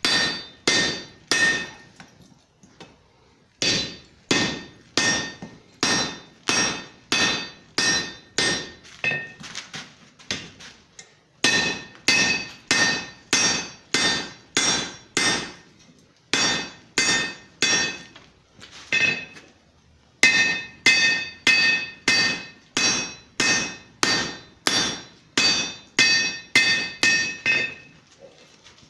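Blacksmith's hammer striking a hot steel railroad rail anchor clip to straighten it: steady blows about two a second, each with a bright metallic ring, in runs broken by several short pauses.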